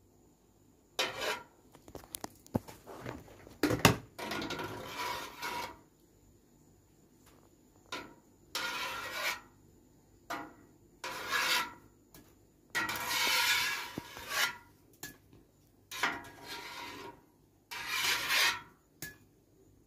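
Perforated metal skimmer scraping against the inside of an aluminium basin of kithul palm sap in a series of rasping strokes, each up to about a second long with short pauses between. A few sharp metal clicks fall among the early strokes. The foam is being skimmed off the raw sap before it is boiled down to jaggery.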